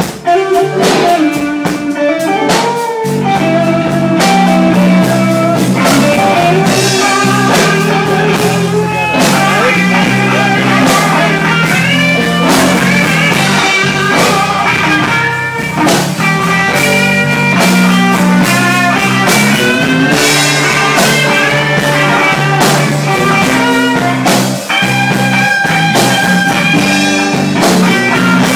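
Live blues band playing a slow blues, with electric guitar lead notes bending and sliding over bass and a drum kit.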